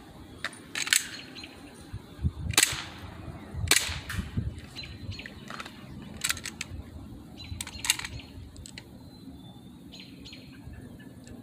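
Gas airsoft pistol giving a series of sharp, irregularly spaced cracks and clicks while its hop-up is being adjusted, the loudest about two and a half and four seconds in.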